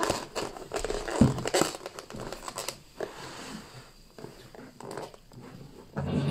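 Champagne being poured into a glass, the foam fizzing and crackling through the first few seconds before it dies down.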